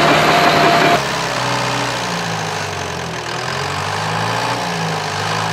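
John Deere 650K crawler dozer's diesel engine running. It is loud and noisy for about the first second, then after about a second it settles into a steadier, slightly quieter low drone.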